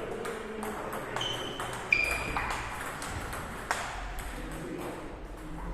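Table tennis balls clicking off bats and tables in uneven, quick succession, some hits ringing briefly, with the sharpest knock about two seconds in.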